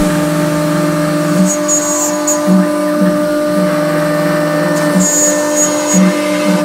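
CNC router spindle running with a steady whine alongside a dust-extraction vacuum hose, while a small end mill cuts cavities into a metal plate. A high-pitched cutting sound comes in twice and drops out again as the cutter works.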